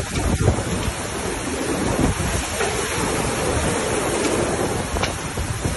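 Muddy floodwater rushing through a street as a steady torrent, with gusts of wind rumbling on the microphone.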